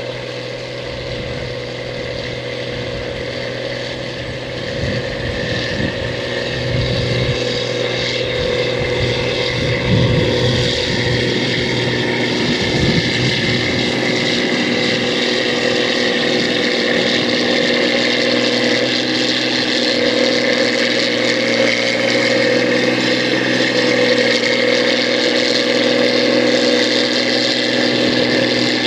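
Rice combine harvester running with a steady engine drone and whine, growing louder over the first ten seconds or so and then holding steady. Uneven low rumbles come and go between about five and fourteen seconds in.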